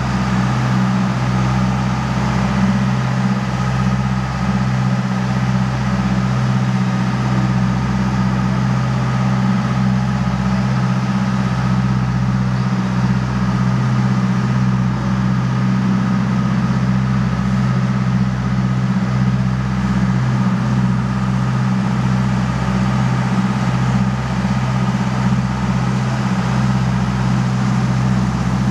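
Sportfishing boat's engine running with a steady low drone while the boat moves along with lines out.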